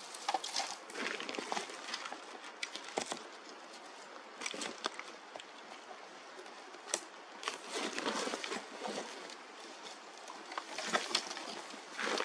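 Irregular rustling and crackling of leaves and twigs close by, with scattered sharp clicks and a few louder bursts of rustling about eight and eleven seconds in.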